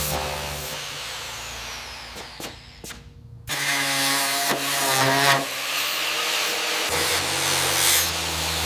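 Power tools running with a steady motor hum that fades and nearly stops a few seconds in, then starts again with a higher whine. The low hum comes back near the end.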